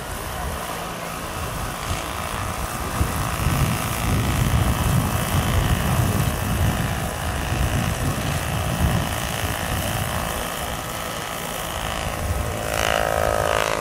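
Vario CH-47 Chinook electric scale model tandem helicopter flying low past, its two rotors giving a low, steady chop with a faint whine from the electric drive. It is loudest around the middle as it passes closest.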